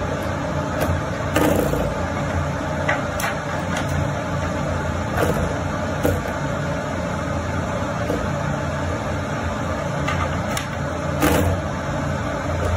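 Spring door stop being flicked by a cat's paw, twanging in short sharp strokes about a dozen times at irregular intervals, the strongest about a second and a half in and near the end, over a steady low hum.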